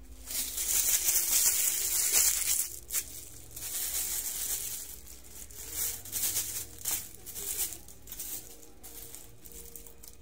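Plastic wrapping crinkling and rustling as it is handled, loud for the first three seconds, then in shorter irregular bursts that die away near the end.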